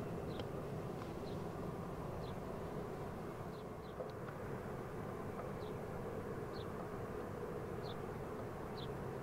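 Embraer E190-E2's Pratt & Whitney PW1900G geared turbofans running at taxi power from a distance: a steady low drone with a faint hum. Short high chirps come about once a second over it.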